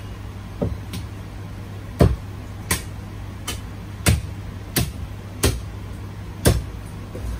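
A heavy cleaver chopping marinated goose on a wooden block: about ten sharp, thudding blows in a loose rhythm, a little faster than one a second, over a steady low hum.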